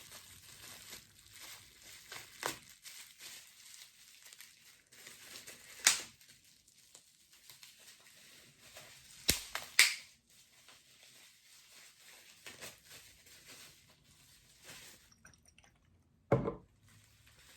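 Packaging being unwrapped by hand, with faint rustling and crinkling. Sharp clicks come about 6 and 9 to 10 seconds in, and a heavier knock near the end.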